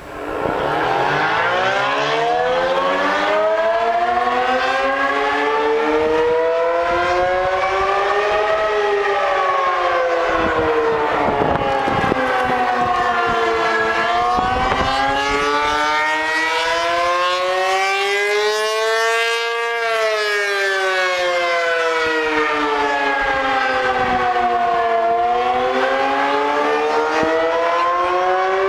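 ACA P-50 rotating outdoor warning siren starting up from rest and sounding the attack signal: a loud wailing tone that rises and falls in slow cycles, about eleven seconds from one peak to the next. Wind buffets the microphone.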